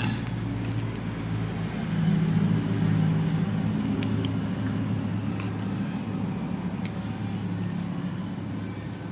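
Steady low engine-like drone of a running motor, swelling a little about two seconds in, with a few faint ticks of cats crunching dry kibble.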